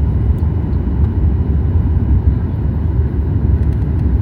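Boeing 737 MAX 8 cabin noise: a steady, loud, low rumble of engines and airflow heard from inside the airliner.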